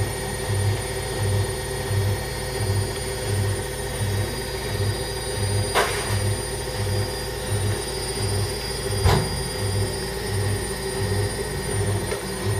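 A steady machine hum with several held tones and a low throb that pulses a little over twice a second, broken by two short clicks about six and nine seconds in.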